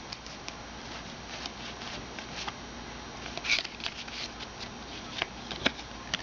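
2009 Upper Deck Heroes football trading cards being flipped through by hand: scattered light clicks and rustles as cards slide off the stack, with a slightly louder flurry about three and a half seconds in.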